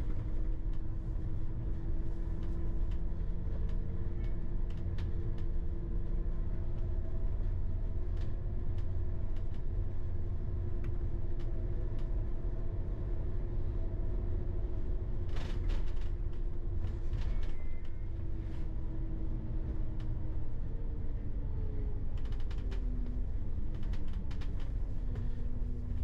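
Bus running, with a deep steady engine rumble and scattered rattles and clicks. Near the end the drivetrain whine falls in pitch in steps as it slows.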